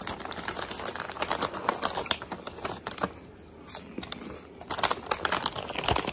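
Crinkling of a shiny plastic Red Rock Deli potato chip bag as a hand rummages in it and then picks it up, with dense crackling in two bouts and a lull around the middle.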